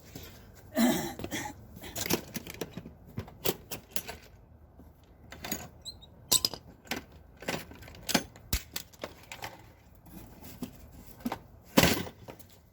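A hammer tapping a stuck part of a lawn mower's handle assembly into place: a run of sharp, unevenly spaced taps, the loudest near the end.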